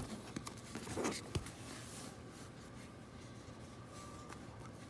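Train-shaped plastic water bottles handled and set down on a textured surface: a sharp click at the start, a scrape and rub about a second in and a short knock just after, then only faint handling.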